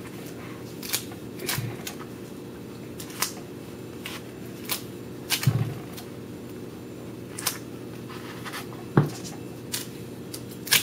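Clear tape being pulled from a desktop dispenser and pressed onto folded paper: scattered sharp clicks and crinkles, the loudest about nine seconds in, over a steady low hum.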